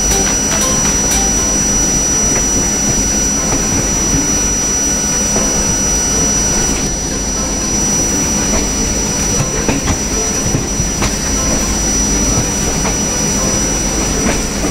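Deccan Queen passenger train running through the station yard, heard from an open coach door: a steady rumble with wind on the microphone, and a few sharp wheel clicks over rail joints and points in the second half.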